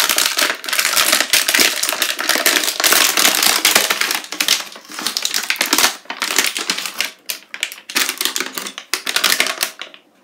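Clear plastic blister being pulled and torn away from its cardboard blister-card backing: loud, dense crackling and tearing, thinning out to scattered crackles in the second half.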